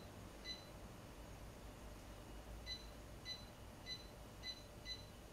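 Short electronic beeps from the Carimali Armonia coffee machine's control panel as its buttons are pressed to set the date during setup: one about half a second in, then five in quick succession in the second half.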